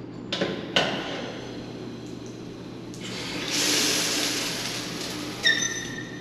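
Push-button metered shower valve clicking as it is pressed, then water hissing as it sprays from the overhead shower head, loudest a little past the middle. Near the end there is another click and a steady high whistle.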